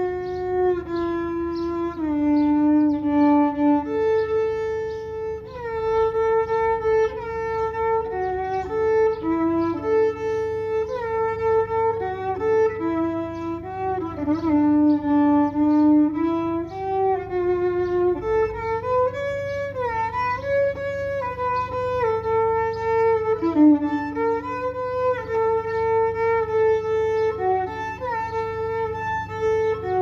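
Violin played with a bow: a slow melody of held notes, sliding smoothly into some of them.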